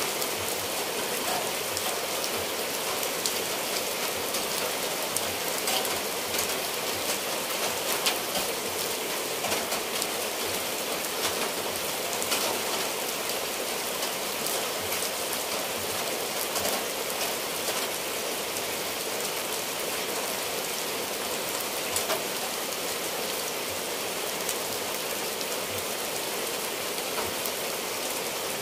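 Steady rain falling on clay roof tiles and dripping from the eaves: an even hiss with scattered sharp drop hits throughout.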